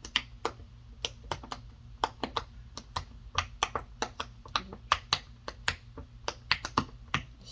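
Silicone push-pop bubble fidget toy having its bubbles pressed one after another on its loud side: a quick, uneven run of sharp pops, about three or four a second.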